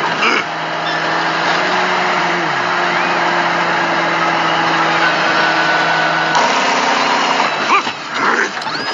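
A vehicle engine running steadily over road noise, holding a constant hum, with a tone sliding down in pitch about two and a half seconds in. The sound shifts about six and a half seconds in, and brief voices come in near the end.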